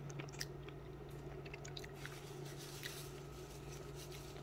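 Faint chewing of a green grape, with small scattered mouth clicks.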